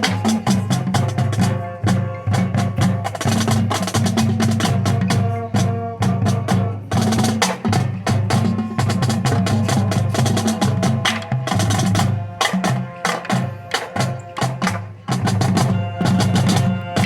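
High school drumline with front ensemble performing: rapid, dense stick strokes on the drums over sustained low bass notes and pitched mallet-keyboard notes.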